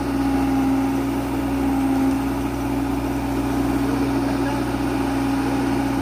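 Heavy diesel engine idling at a steady, unchanging pitch.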